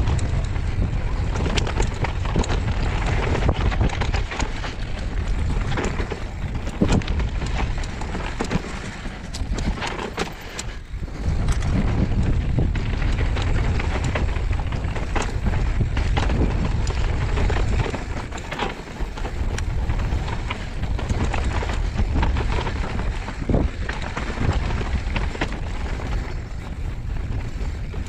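Wind buffeting the microphone of an action camera during a fast downhill mountain bike run, with frequent rattles and knocks from the bike and tyres over rough trail. The rush eases briefly about ten seconds in.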